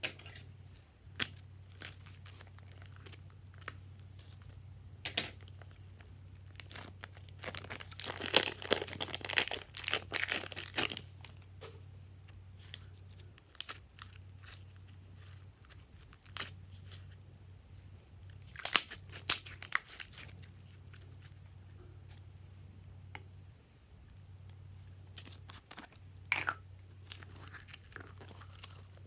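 Glossy slime squeezed out of a plastic piping bag and handled: irregular sticky crackles and plastic crinkling, coming in a few denser clusters. A steady low hum runs underneath.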